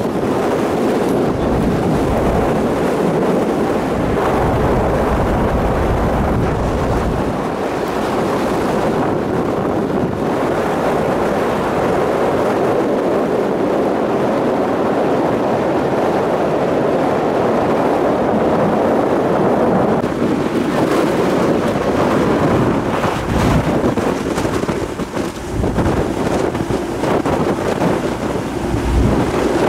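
Wind rushing across the open deck of a moving car ferry and buffeting the microphone, over the hiss of water churned along the hull. It turns gustier and more uneven about two-thirds of the way through.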